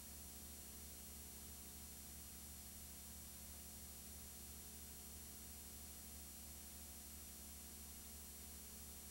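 Near silence: only a faint steady hum and hiss, with no sound of its own.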